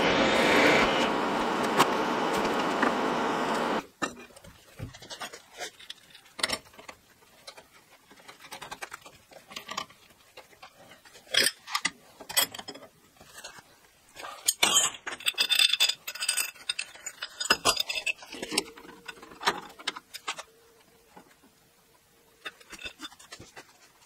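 A mill-drill's motor runs steadily while drilling steel, then stops suddenly about four seconds in. After that come scattered metal clinks and scrapes as open-end wrenches and steel parts are handled at a vise.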